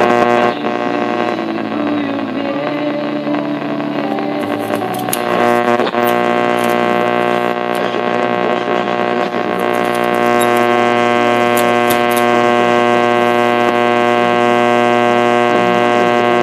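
Delco push-button AM car radio sounding through its speaker with a steady, buzzing hum of many layered tones and no voice. The pitch shifts in the first few seconds, then holds. The sound has the dull, treble-less tone of AM reception.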